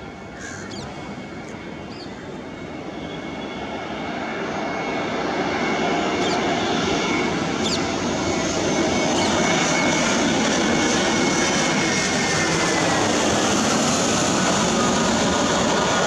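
Airbus A320 jet engines on final approach, growing louder as the airliner closes in over about six seconds, then holding. Their whine drops in pitch from about twelve seconds in as the aircraft passes overhead.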